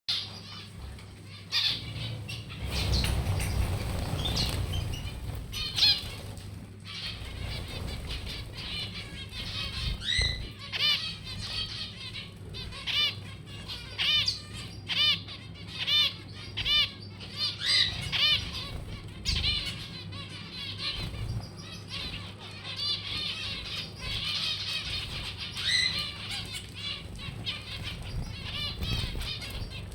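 Domestic canary singing: long trills of quickly repeated, arching chirps. A rustle of fluttering wings comes a few seconds in, over a steady low hum.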